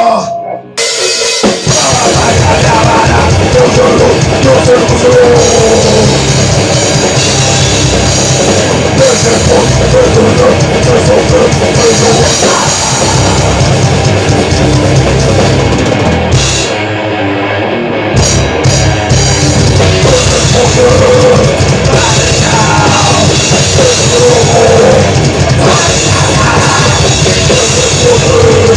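A grindcore/death metal band rehearsing, loud: pounding drum kit under distorted guitar and bass. It kicks in about a second and a half in after a brief gap, with a short break in the low end partway through.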